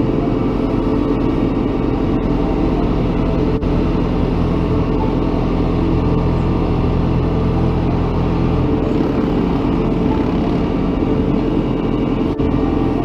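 Engine of a heavy vehicle or machine running steadily with a low hum; its note changes about two-thirds of the way through.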